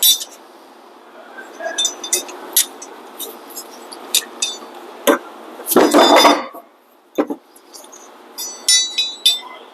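Metal hand tools, a socket and wrench, clinking and knocking against metal while working on a bolt. The clinks ring briefly. The loudest sound is a rattling burst of about half a second near the middle, and a quick cluster of clinks comes near the end.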